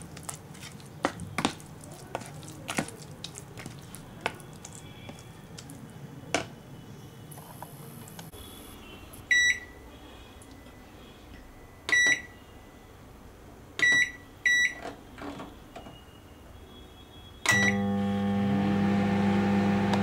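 Microwave oven being set: a few scattered clicks and knocks, then five sharp keypad beeps a second or two apart. At the last beep, near the end, the oven starts running with a loud steady hum as it begins a two-minute cooking cycle.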